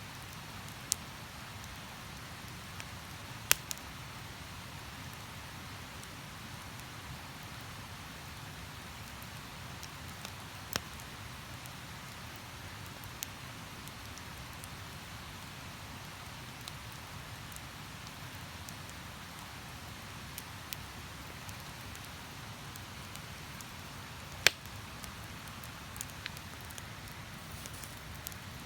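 Wood campfire crackling, with scattered sharp pops every few seconds, the loudest about three-quarters of the way through, over a steady rush of river water.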